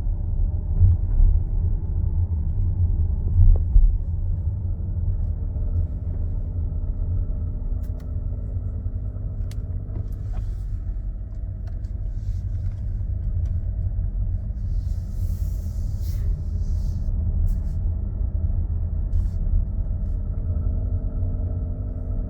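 Nissan X-Trail e-Power running, a steady low rumble; about 20 seconds in a droning tone comes in over it. This is the loud, ugly engine noise from the petrol generator engine that the owner takes for a problem.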